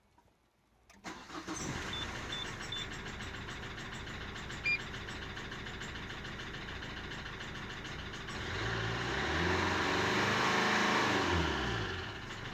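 Renault Megane 1.5 dCi diesel engine starting about a second in and settling to idle, with the knocking at idle (طقطقة) that its owner cannot explain and a mechanic suspected might come from a piston. Revved up and back down near the end.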